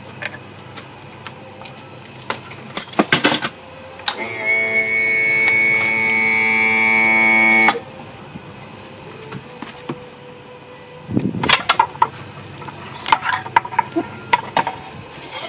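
Metal clunks and knocks as the lower unit of a 60 hp outboard motor is worked free and handled, a cluster about 3 s in and more from about 11 s on. A loud, steady, horn-like tone sounds for nearly four seconds in the middle and cuts off abruptly.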